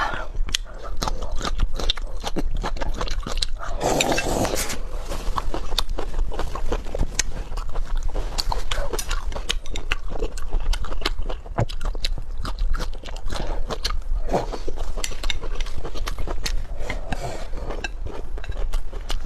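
Close-up eating sounds: dense, irregular mouth clicks and smacks of chewing food.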